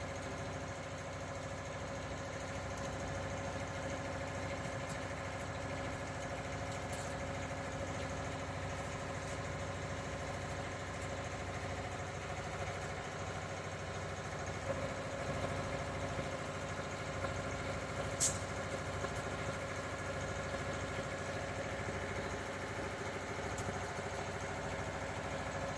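An engine running steadily at idle, with a few light taps about fifteen seconds in and one sharp click a few seconds later.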